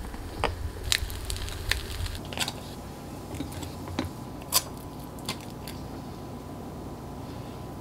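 Kitchen utensil sounds: scattered taps, clicks and clinks of a table knife and a spatula against a plate and toast, busiest in the first half, over a faint steady tone.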